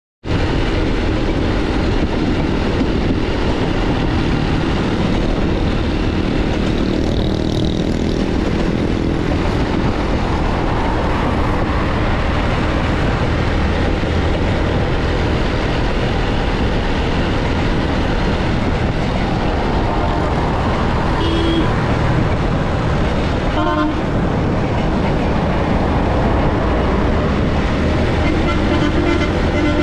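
Steady wind and engine noise of a motorbike riding along a highway among traffic, with brief horn toots a few times in the second half.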